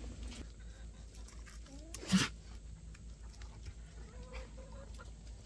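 One short, noisy snort-like animal sound about two seconds in, from the goat or puppies close to the microphone, against otherwise quiet background.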